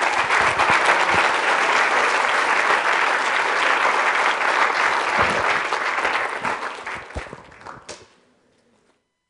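Audience applauding at the end of a talk, many hands clapping steadily, then fading away about seven to eight seconds in.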